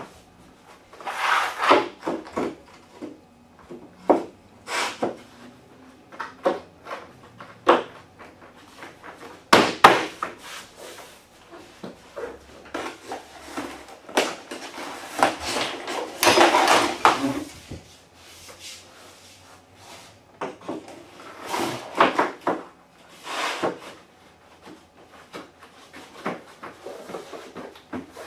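Laminate flooring planks being handled and pulled from their cardboard box: irregular knocks and clatters of the planks, with stretches of sliding, scraping and cardboard and plastic wrap rustling.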